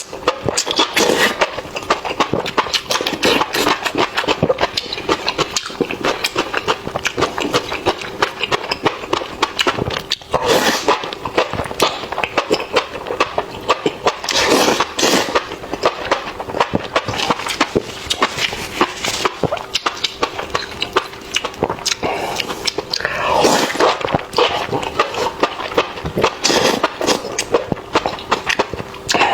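A person eating close to the microphone, ASMR-style: continuous wet chewing and crunching of spicy meat, a dense run of small clicks and crackles.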